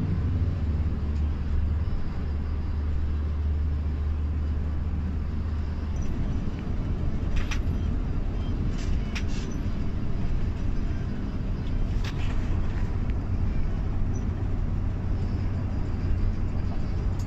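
Cabin noise of an intercity coach under way on a wet road: a deep steady engine hum with road rumble and tyre hiss. The hum breaks up about six seconds in. A few short light clicks or rattles come through.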